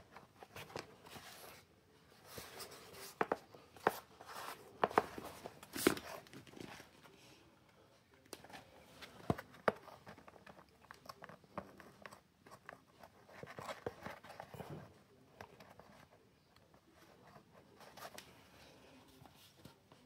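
Corrugated cardboard shipping box being handled by hand: scattered sharp clicks, scrapes and crinkles of cardboard, thickest in the first half, then softer rustling.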